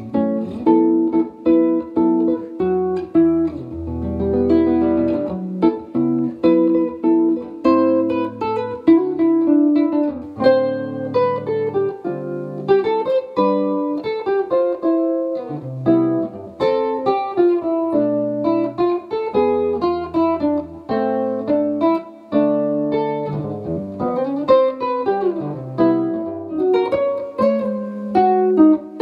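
Solo fingerstyle playing on a nylon-string, frame-bodied electric classical guitar: a melody of plucked notes over bass notes.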